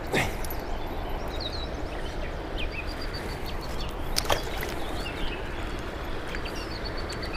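Steady rush of flowing river water, with small birds chirping now and then and two brief sharp noises, one right at the start and one about four seconds in.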